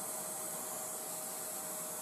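Dust-collection vacuum running steadily at the drill press, a smooth hiss of air being drawn into the ribbed collection hose with a faint steady whine.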